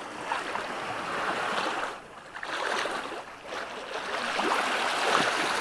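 Small sea waves washing and splashing at the water's edge, swelling and falling in slow surges.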